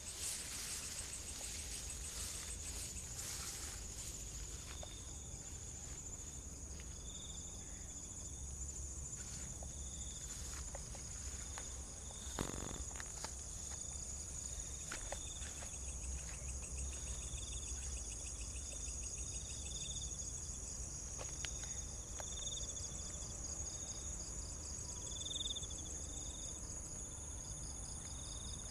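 Night insects, crickets among them, chirping: a steady high-pitched buzz under repeated short pulsed chirps and trills. A few scattered clicks, with a louder knock about twelve seconds in.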